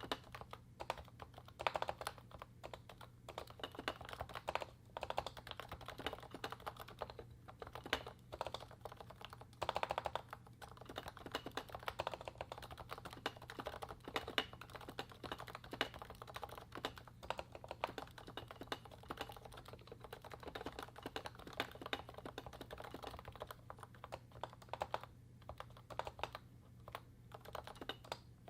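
Steady typing on a Realforce 87U Topre keyboard (electrostatic capacitive switches with rubber domes, 55 g) fitted with lubed Novatouch sliders and DEV/TTY MT3-profile PBT keycaps: a dense, uneven run of keystrokes with a few brief pauses, over a faint low hum.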